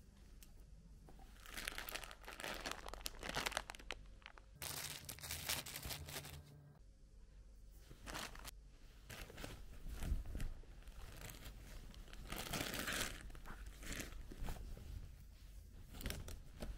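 Rustling and crinkling as a canvas tote bag and the things being packed into it are handled, in irregular bouts.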